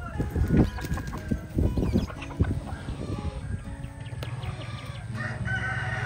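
A flock of chickens clucking as they crowd in to feed, with many short clucks in the first couple of seconds. A rooster crows near the end.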